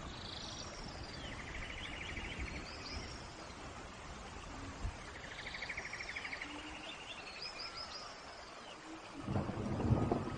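Steady rain hiss with a songbird singing a repeated phrase of short downward whistles and a fast buzzy trill, twice. Near the end a louder, lower wash of noise comes in.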